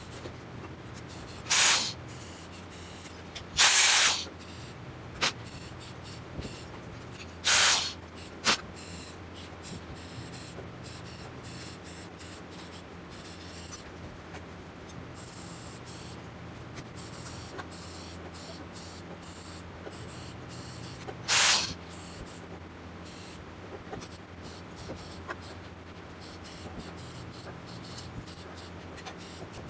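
TIG welding arc on thin stainless sheet, struck in four short hissing bursts of under a second each, like tack welds, with a few smaller clicks. Under them runs a steady low hum.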